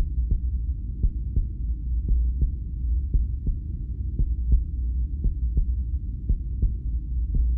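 Dark suspense sound effect: a deep, steady low rumble with a sharp tick repeating evenly about three times a second.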